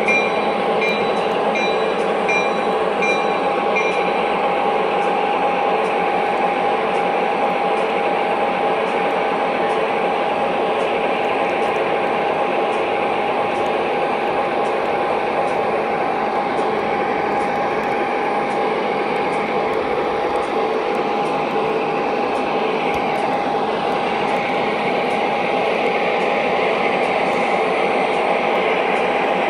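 O gauge model diesel locomotives running, with a steady engine hum. A repeated high ringing, about twice a second, stops about four seconds in.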